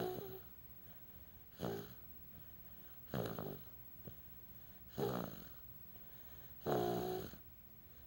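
A baby snoring in sleep: five short snores with a pitched, hum-like tone, one about every second and a half to two seconds.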